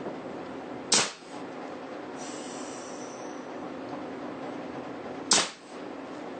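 Homemade .565-calibre big bore air rifle firing twice, about four seconds apart. Each shot is a sharp, loud burst of compressed air released through its quick-exhaust valve, set off by a solenoid trigger valve.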